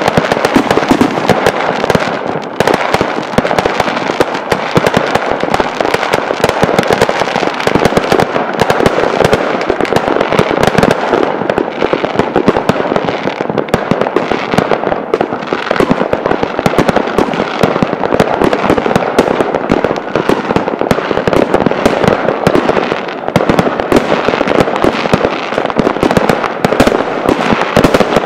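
Aerial fireworks bursting in a dense, unbroken barrage of bangs and crackles.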